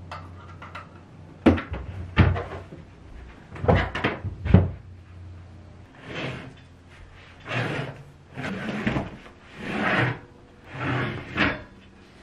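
A few sharp knocks and clunks, then a run of about five sliding, scraping pulls as a black metal-framed sofa bed is dragged out and its slatted frame extended into a bed.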